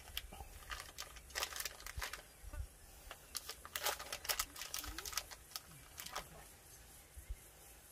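A white chocolate wrapper crinkling in the hands as soft chocolate is broken up and crumbled out of it. Irregular crackles come thick and fast, then thin out about six and a half seconds in.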